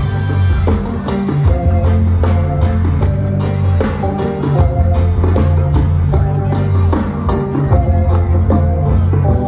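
A band playing an instrumental passage with no singing: a heavy, steady bass line under repeated guitar notes and a regular beat.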